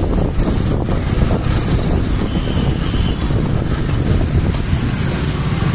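Wind buffeting the microphone while riding a motor two-wheeler, a steady low rumble with the bike's engine running underneath.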